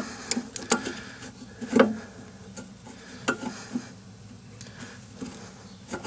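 A wrench clicking and knocking against the brake line fitting at a drum-brake wheel cylinder as it is worked to crack the line loose, in scattered sharp taps, the loudest a little under two seconds in.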